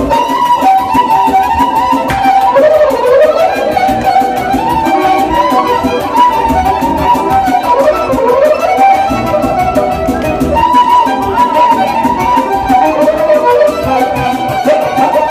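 Live violin playing an ornamented melody that slides up and down, over Korg electronic keyboard accompaniment.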